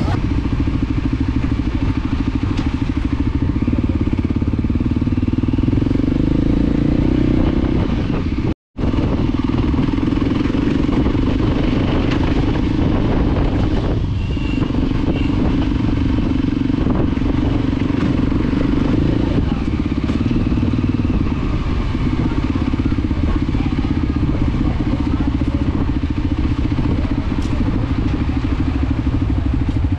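Motorcycle engine running steadily, heard from on the bike while riding, with a brief dropout about a third of the way through.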